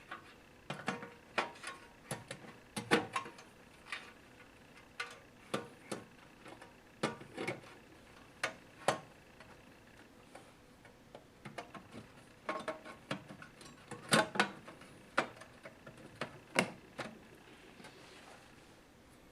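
Irregular sharp clicks and knocks, some in quick pairs, from handling and refitting the cover panel of a digital theatre organ and its screws.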